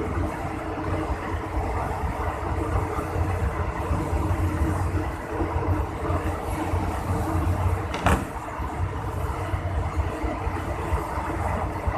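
Steady running rumble of a moving train heard from on board, with a faint steady hum and a single sharp knock about eight seconds in.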